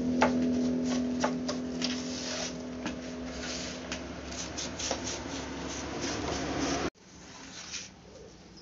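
Repeated scraping and brushing strokes against the wooden boards of a concrete-casting mould, over a steady low hum that fades out about halfway. Near the end the sound cuts off abruptly to quieter handling noises.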